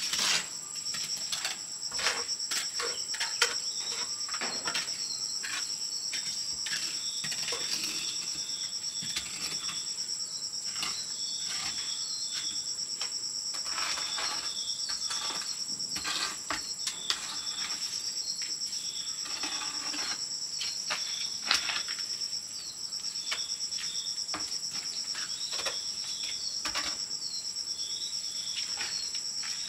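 Steady high-pitched insect chorus, with a second, lower call in short runs of pulses repeating every couple of seconds. Scattered clicks and knocks sound over it, the loudest about 3 s in and about 21 s in.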